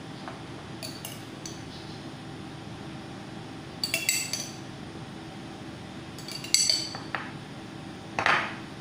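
Metal spoon clinking against a glass jar while scooping out strawberry preserves: a faint clink about a second in, then quick clusters of clinks around four seconds and six and a half seconds, and a duller scrape near the end.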